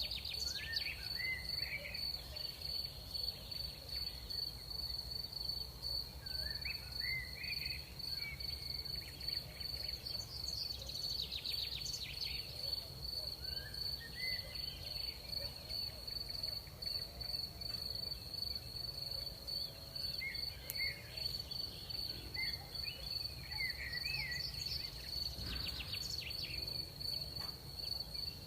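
Crickets trilling in one unbroken, high steady tone, with short chirping calls a little lower in pitch coming and going every few seconds over a low steady rumble.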